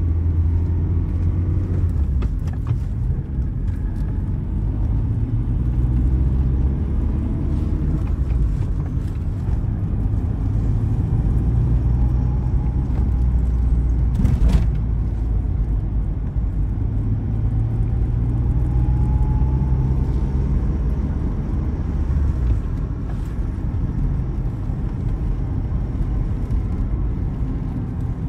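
Interior sound of a 1990 Volkswagen Jetta on the road: its 1.8-litre gasoline engine runs under way with tyre and road noise, its note rising and falling with speed. One sharp click about halfway through.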